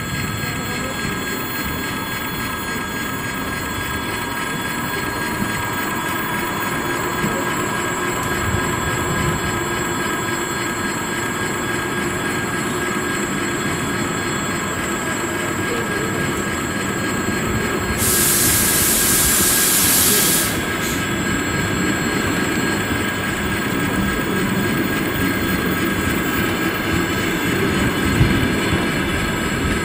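Passenger coaches of a locomotive-hauled train rolling past on the rails, a steady rumble of wheels with a few steady high tones over it. About two-thirds of the way through, a loud hiss lasts about two seconds and cuts off suddenly.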